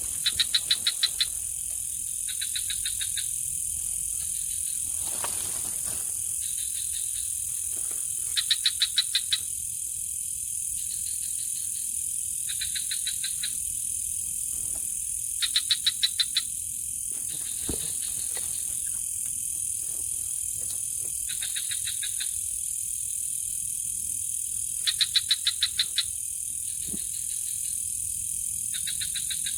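Frogs calling in turn: every few seconds a train of rapid clicking pulses lasting about a second, a louder caller alternating with a fainter one, over a steady high-pitched drone of night insects.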